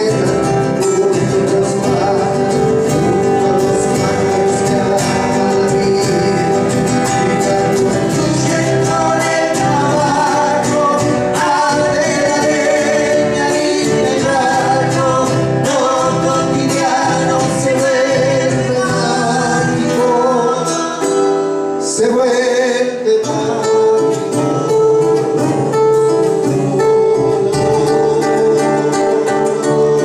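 Live Argentine folk song on two acoustic guitars, with a man singing over the strummed and plucked chords.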